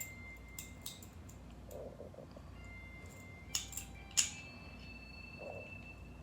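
Faint metallic clicks and scrapes of a Ruger P95's recoil spring and guide rod being worked into the slide during reassembly, with a few sharp clicks, the loudest about four seconds in.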